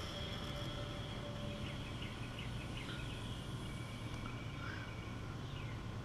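The last of a CO2 cartridge's hiss into the tyre trails off in the first second or so, leaving a faint steady low hum. Birds chirp in the background with short falling notes, more often near the end.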